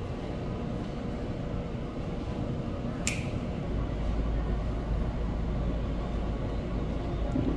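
A single sharp click about three seconds in, over steady background noise, with a low rumble coming in just after it.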